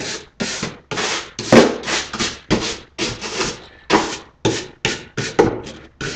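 A stiff brush scrubbing over a goose decoy's head in quick, rasping strokes, about two or three a second, brushing off dirt to prepare it for paint and flocking.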